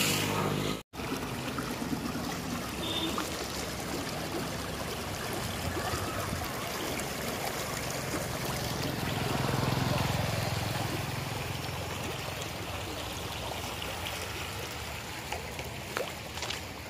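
Floodwater flowing and trickling in a steady rush, which cuts out briefly about a second in.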